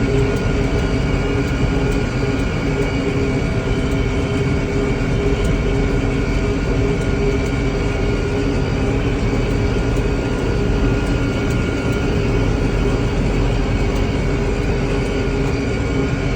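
Farm tractor engine running steadily under load while mowing hay, a constant loud drone with several steady tones over a deep rumble.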